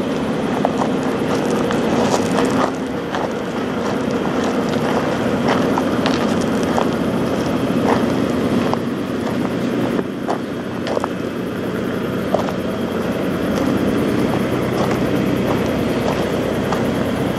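Western Star semi truck's diesel engine idling steadily, with scattered sharp clicks over it.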